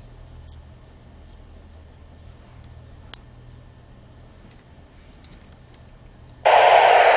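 A few small clicks from the Yaesu VX-150 handheld transceiver's controls, one sharper than the rest about three seconds in. Near the end, loud steady static hiss bursts from the radio's speaker and keeps going.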